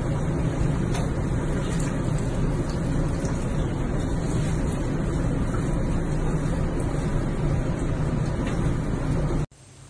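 Steady low rumbling rush of bathwater churning in a tub, with no change in pitch or rhythm. It cuts off abruptly near the end.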